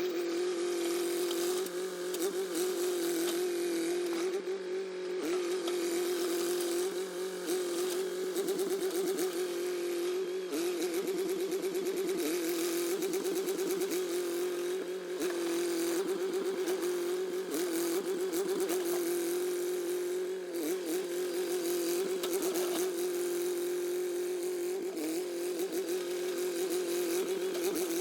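Gasoline engine of a 1950s micro bulldozer running steadily, with brief wavers in pitch every few seconds.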